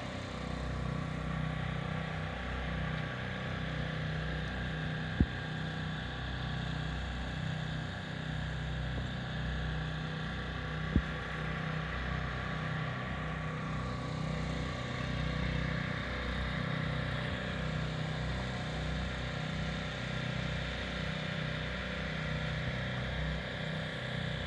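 An engine running steadily at a constant speed, with two sharp clicks, one about five seconds in and another about six seconds later.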